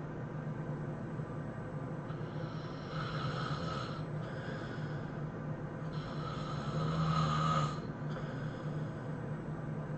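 A person snoring hard, with a long snore on each breath every few seconds, the loudest about seven seconds in.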